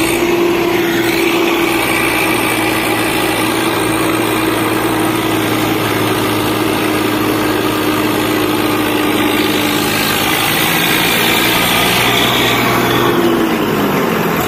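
Diesel tractor engine running at steady high revs, then the revs fall away about a second before the end.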